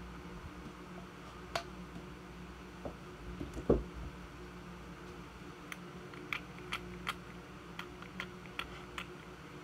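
Handling noise: a single dull thump about four seconds in, then a string of about ten light clicks and taps near the end, over a faint steady room hum.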